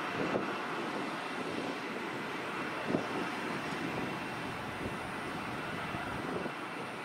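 Steady distant roar of jet airliners at the airport, with a faint steady high whine on top.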